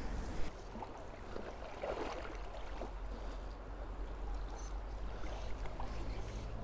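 Flowing river water: a steady rush and lapping of the current, with a short hiss in the first half second and a few soft knocks about two seconds in.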